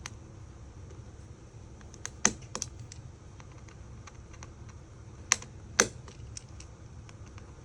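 Scattered light clicks and taps of small repair tools and parts on an iPhone 5 being taken apart, the loudest about two seconds in and twice more a little past five seconds. A steady low hum runs underneath.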